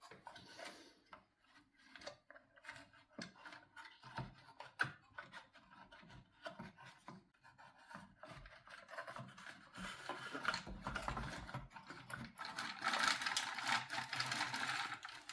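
Hands working on a cuckoo clock's works and wooden case: scattered light clicks and knocks, then a longer stretch of scraping and rubbing in the last few seconds.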